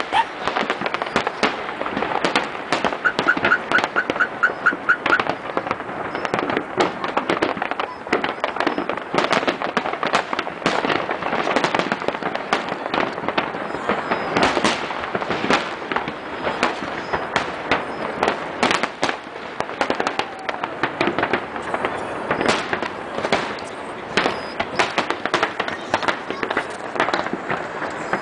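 Fireworks display: a dense, continuous barrage of shell bursts and crackling, several reports every second.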